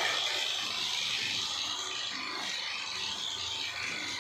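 Electric high-pressure washer spraying a jet of water onto a motorcycle, a steady hiss of spray, with the washer's motor and pump running under pressure.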